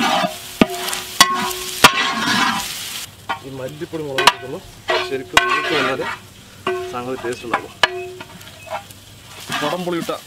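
A wooden spoon stirring and scraping a thick chili-spice mixture in a large metal pot, with sharp knocks of the spoon against the pot in the first couple of seconds. Food sizzles as it fries in a pan over a wood fire.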